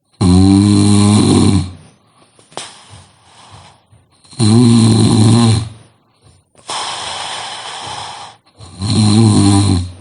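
A sleeping person snoring loudly: four long snores in ten seconds, most with a low, buzzing rattle, one breathier and quieter, with soft breathing between them.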